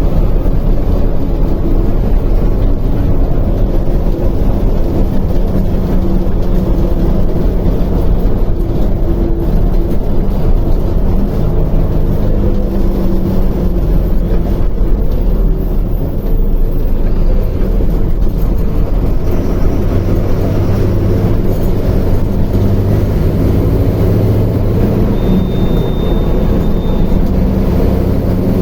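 Mercedes-Benz OF-1721L bus's four-cylinder turbodiesel engine running under way, its pitch rising and falling with the throttle. A brief high beep sounds near the end.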